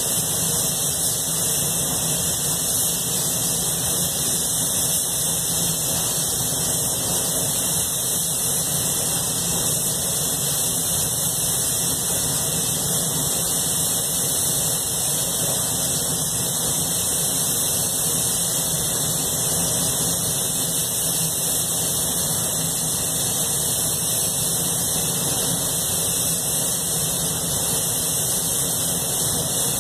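Steady rushing air in a paint spray booth, with a strong hiss: the booth's ventilation running while compressed air drives an Anest Iwata spray gun applying paint to a car body.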